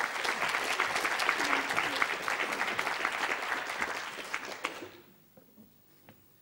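Audience applauding: dense clapping that dies away about five seconds in.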